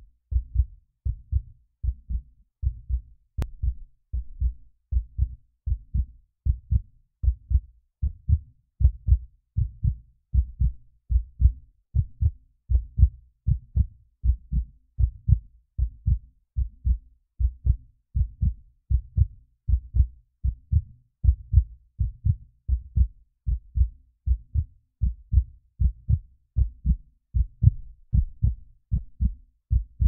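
Heartbeat: a steady lub-dub rhythm of paired low thumps, a little more than one beat a second.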